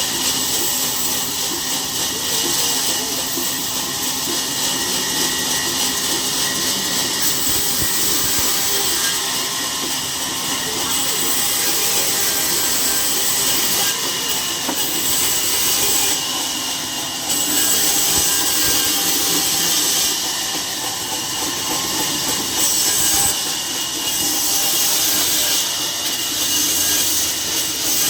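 A sawmill saw cutting through a log, making a continuous hiss with a steady ringing tone.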